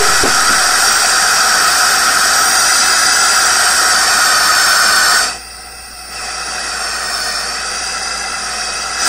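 Tesla-valve pulse jet engine running with a loud, high-pitched hissing scream. About five seconds in it falters and drops sharply, picks back up weaker, then cuts out at the very end: the engine dying, which the operators put down to a valve being turned up.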